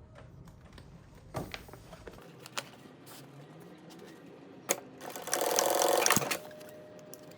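Sewing machine stitching in one short run of about a second, fast and even, about five seconds in. A few sharp clicks come before it.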